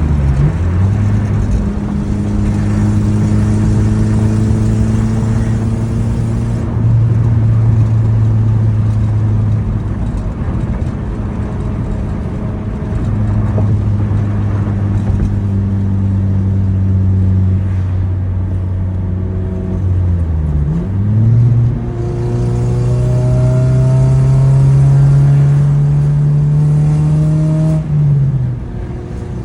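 2004 Honda Civic Si's four-cylinder engine running under way at a steady pitch for long stretches, its revs falling sharply and climbing again about twenty seconds in and dropping once more near the end, as on a drive with gear changes.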